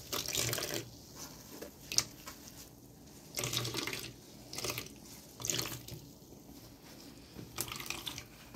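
Coconut milk pouring and splashing into a plastic container in repeated spurts as blended grated coconut is squeezed by hand through a metal sieve, with one sharp tap about two seconds in.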